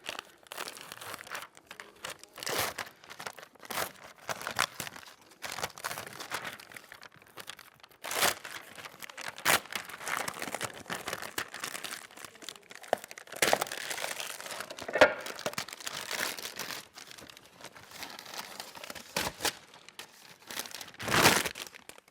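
Protective backing being peeled off the adhesive of a Wakaflex Uni outlet flashing: irregular crinkling, rustling and tearing, with a louder rustle near the end.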